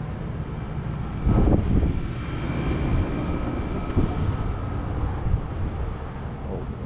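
Passing motor-vehicle noise: a steady low rumble with a louder surge about a second in and a faint engine whine through the middle.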